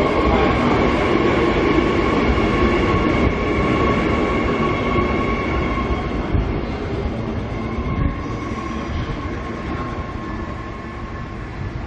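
Electric multiple-unit commuter train pulling out along the platform: a steady electric whine over the running noise of the wheels, fading as the train moves away.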